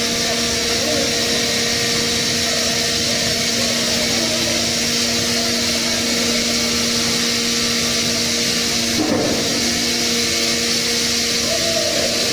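Steady drone of heavy tunnelling machinery running, a constant hum under a hiss, with a brief bump about nine seconds in.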